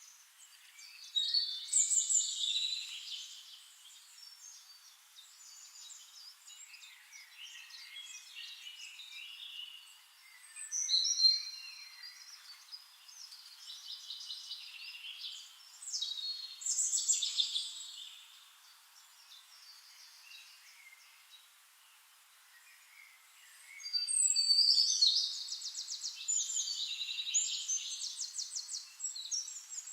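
Songbirds singing: loud bursts of varied, quickly changing high phrases, with quieter calls between them and a long run of rapid trills near the end.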